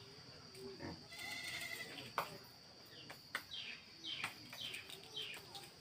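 Small knife slicing through a shallot held in the hand: a series of short, crisp cuts. An animal bleats briefly in the background about a second in, over a steady high-pitched whine.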